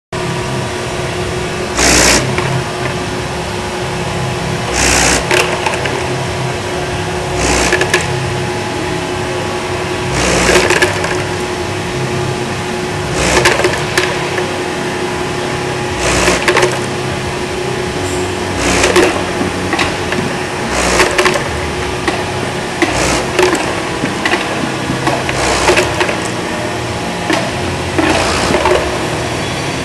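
Elevator hopper parts feeder running with a steady motor hum, and a short clatter of parts tumbling about every two and a half to three seconds as batches are lifted and dropped.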